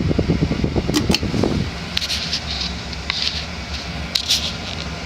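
Casablanca Utopian direct-drive ceiling fan with a spinner motor, spinning up to high speed: a steady motor hum with airy blade swishes about once a second. A rapid rattle sounds in the first second and a half and dies away. The motor carries a slight cyclic buzz, which the owner puts down to the motor being slightly out of flux.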